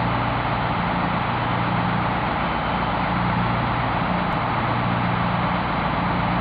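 Fire engine's engine running steadily at the scene, a constant noise with a low hum underneath that comes and goes.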